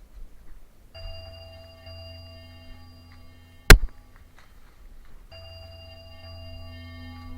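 Steady bell-like ringing tones of several pitches over a low hum, starting about a second in. A single sharp, loud click cuts them off midway, and they start again about a second and a half later.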